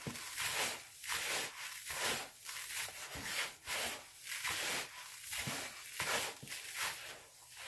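Gloved hands rubbing and scrunching coarse bath salts mixed with dried rose petals in a plastic bowl: a gritty, rasping sound in repeated strokes, about two a second.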